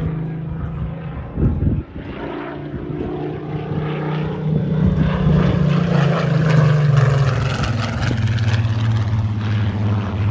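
Spitfire Mk XIV's Rolls-Royce Griffon V12 running loud in a low display pass, its engine note dropping in pitch past the middle as it flies by. A brief loud bump about a second and a half in.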